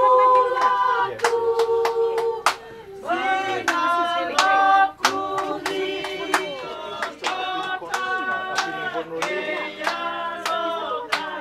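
A group of voices singing unaccompanied in harmony, with rhythmic hand clapping about twice a second.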